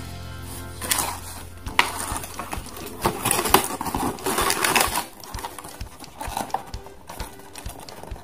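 Hands handling hard plastic toy robots and their packaging: a string of clicks, knocks and rustles of plastic and cardboard, busiest in the first half and sparser after about five seconds in.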